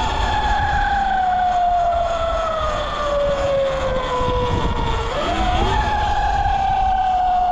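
Electric dirt bike's motor whining, its pitch sliding slowly down as the bike slows. About five seconds in the pitch jumps back up as the throttle is opened, then slides down again. Wind rumbles on the microphone throughout.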